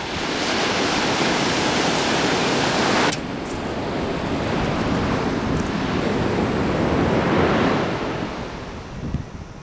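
Wind on the microphone mixed with ocean surf, a loud steady rush of noise. It drops sharply about three seconds in, then swells up again and fades toward the end.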